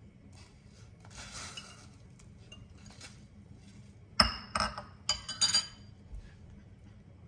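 Metal spoon scraping sausage slices out of a bowl, then clinking sharply against the stainless steel cooking pot four times in quick succession a little past halfway through.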